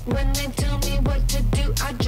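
Tech house track playing in a DJ mix: a steady four-on-the-floor kick drum about twice a second, crisp hi-hats and a vocal line.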